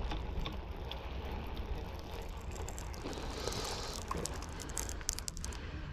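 Wind rumbling on the microphone, with a few light clicks and taps from a fishing rod, baitcasting reel and rig being handled about halfway through.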